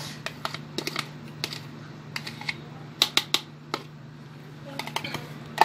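A metal spoon tapping and scraping inside a yogurt cup, scooping yogurt out into a bowl of flour: a scatter of light, irregular clicks, with a few sharper taps about three seconds in and one at the very end.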